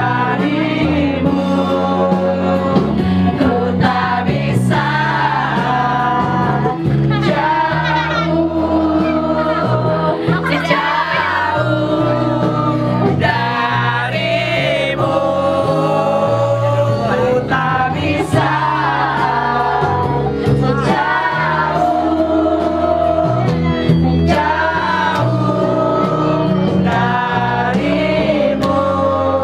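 A group of voices singing together into microphones over amplified backing music with a steady bass line.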